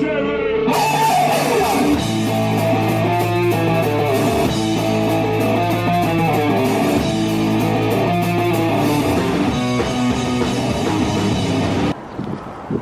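Loud rock music: electric guitars, bass and a drum kit playing hard, cutting off abruptly near the end.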